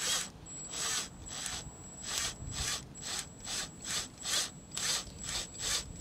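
Cordless drill driving a mounting screw through a stacked doorbell wedge mount into the wall. The motor gives a steady high whine, with a rasping grind about twice a second as the screw turns in.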